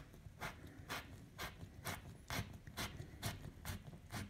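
A self-drilling plastic drywall anchor being screwed by hand into drywall with a screwdriver, with no pilot hole. It makes short, faint crunching clicks about twice a second as the anchor cuts its threads into the gypsum.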